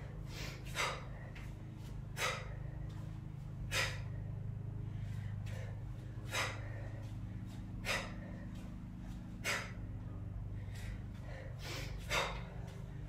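A woman's sharp exhaled breaths, one on each rep of kettlebell swings and snatches, coming about every second and a half over a steady low hum.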